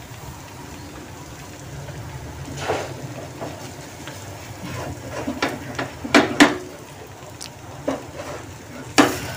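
Kitchen utensils and containers knocking and clinking against a pan at the stove: a handful of sharp knocks, loudest a little past six seconds and again near the end, over a steady low hum.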